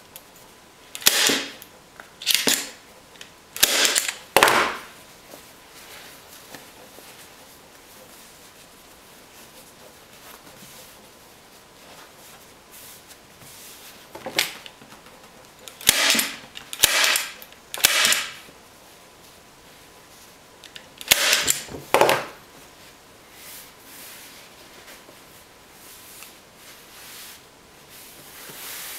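Manual heavy-duty staple gun firing staples through upholstery fabric into a seat base: about ten sharp snaps in short clusters, with quiet pauses between while the fabric is pulled taut.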